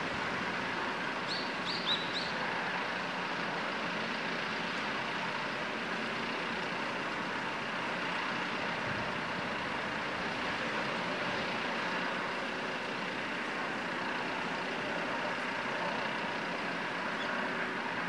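Steady, even rush of the Seven Island Niji jetfoil's gas turbines and water jets as it manoeuvres off the pier, heard from across the harbour. A few short high chirps come between one and two seconds in.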